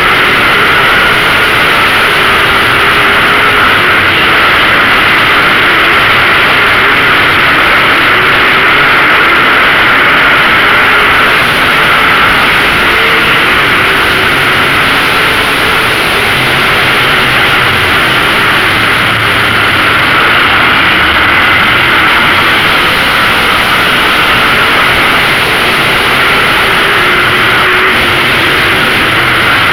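A field of Late Model race cars running at speed, their V8 engines making a loud, continuous din with no let-up.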